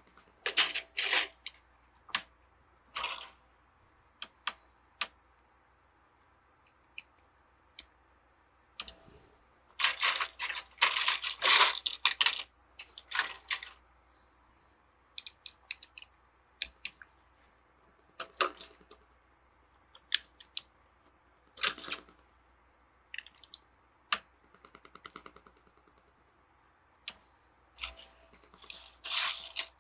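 Plastic Lego bricks clicking and rattling in irregular bursts as pieces are handled, loudest about ten to twelve seconds in.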